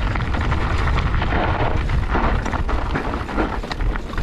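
Mountain bike riding fast down a rough, chunky trail: wind buffets the microphone in a steady low rumble, with many quick rattles and clicks from the bike and tyres over the rough ground.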